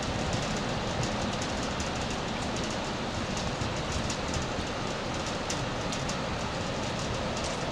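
Steady rain with running floodwater: an even noise with a low rumble underneath and scattered faint drop ticks.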